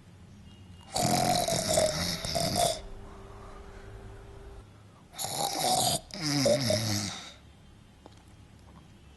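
A young woman snoring loudly for a film take: one long snore about a second in, then two more back to back about five to seven seconds in. The snoring is performed, and the crew judge that she cannot snore properly.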